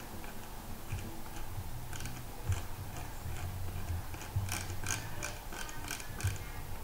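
Scattered clicks of a computer keyboard and mouse, coming thicker about four to six seconds in, over a low hum.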